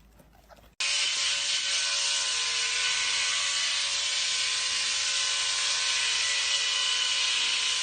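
A steady machine whir with a hiss and a few constant tones, starting suddenly just under a second in.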